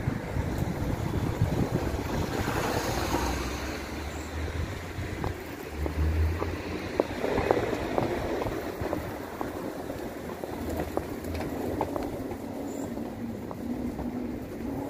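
Street traffic noise with wind buffeting the microphone, and a louder swell of passing traffic about two to four seconds in.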